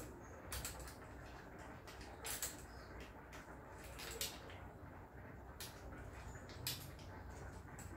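Faint clicks and scrapes of an AirForce Texan SS air rifle's parts being handled and turned during assembly, a handful of short sharp clicks a second or so apart.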